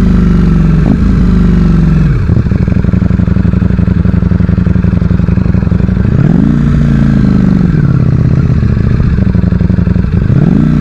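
Ducati Streetfighter V4's engine heard onboard while riding. The revs drop sharply about two seconds in and run low and choppy for a few seconds, then climb around six seconds in and again near the end. The revs are kept under 6,000 rpm for running-in.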